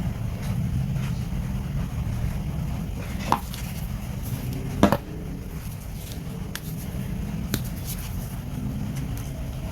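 Wire stripper pliers clicking a few times as they work on a cable, the loudest snap about halfway through, over a steady low rumble.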